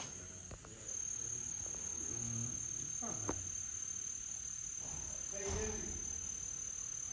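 Steady high-pitched trill of night insects such as crickets. A couple of light knocks as plastic water bottles are moved about in a cooler.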